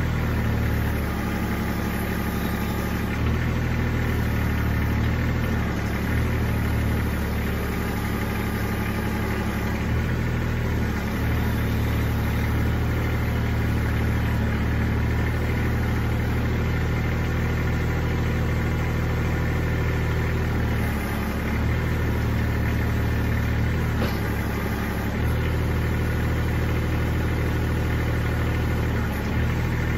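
Kubota compact tractor's diesel engine running steadily while it drives the backhoe attachment's PTO hydraulic pump. Its note dips briefly a few times as the backhoe boom is worked.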